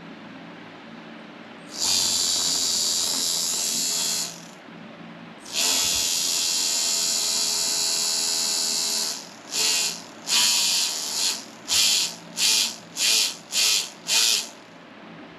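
A homemade 3D-printed inrunner brushless DC motor running with a high-pitched whine. It spins twice for about two to three seconds at a time, then in a quick run of short bursts as the throttle is blipped on and off.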